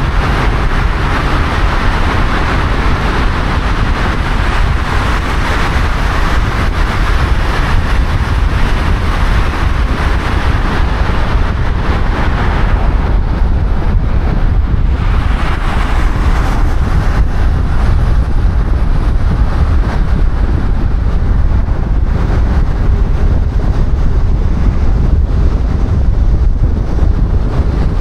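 Steady road noise of a car driving at speed on an expressway: a deep low rumble with tyre and wind hiss over it. The hiss eases for a couple of seconds about halfway, then returns.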